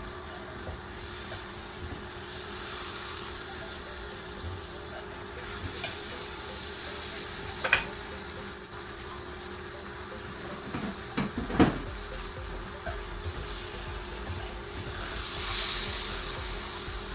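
Pieces of marinated crocodile meat sizzling in melted butter in a frying pan, the hiss swelling twice. A few sharp knocks cut through, one near the middle and a quick cluster a few seconds later.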